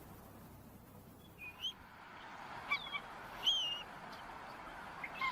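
Bald eagles calling: about five high, thin chirps that glide up and down in pitch. They start about a second and a half in, over a steady background hiss.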